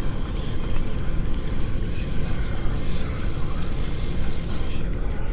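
A steady, noisy low rumble with no clear pitch.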